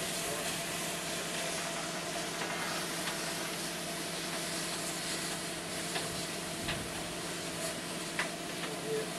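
Steady hiss of steam escaping from the boiler of JA 1250, a JA-class steam locomotive, while it is being steam tested, with a few faint knocks near the end.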